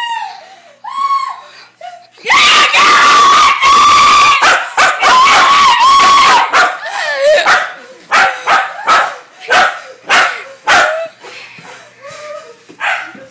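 A young woman screaming with excitement: one long, loud, high scream that starts a couple of seconds in and lasts about four seconds. After it comes a run of short, sharp barks from a small dog.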